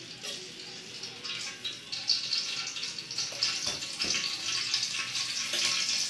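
Oil heating in a steel kadai over a gas flame, hissing and crackling more and more loudly as seasoning goes into it.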